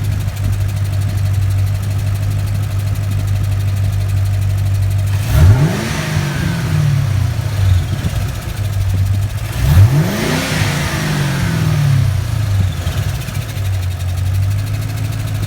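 2006 Ford Mustang GT's 4.6-litre V8 idling, revved twice, about five and ten seconds in, each rev rising quickly and falling back over about two seconds. A fast ticking from the driver-side cylinder head speeds up with rpm, which the owner suspects could be valve springs or lifters.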